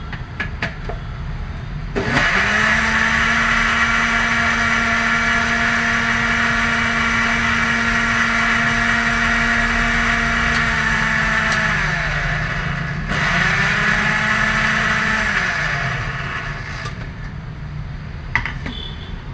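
Electric mixer grinder with a stainless steel jar running at full speed for about ten seconds, blending papaya for juice. It drops off briefly, runs again for about three seconds, then winds down with a falling hum. A couple of sharp clicks follow near the end as the jar is handled.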